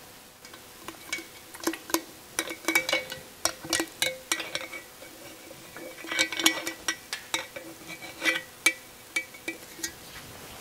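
Steel rocker arm and rocker shaft clinking and clicking against the cylinder head of a Porsche air-cooled engine as they are fitted by hand. The sound is irregular metallic clicks with a short ring, coming in busy clusters.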